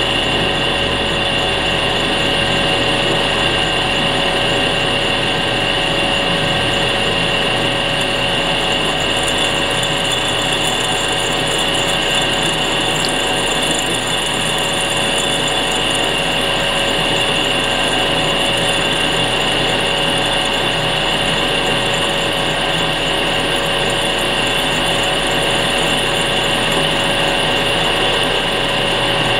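Lathe running steadily with a constant whine, spinning a glass vacuum tube in its chuck while a cutter is held against the glass to score a line around it.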